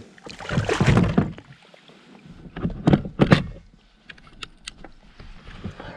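Splashing and knocking beside a kayak as a striped bass is released back into the water: a loud burst of splashing, then two short sharp splashes and a few light knocks.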